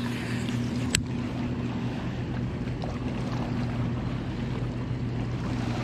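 Wind and water noise around a fishing kayak under a steady low hum, with one sharp click about a second in.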